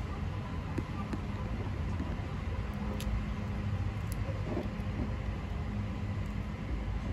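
Steady low background rumble, with a few faint crisp clicks of baby sulcata tortoises biting and tearing leafy greens, one about three seconds in and another about a second later.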